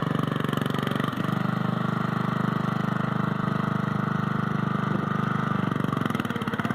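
Simplicity 4212 lawn tractor's 12-horsepower Briggs & Stratton engine running at a steady speed, with a brief dip about a second in.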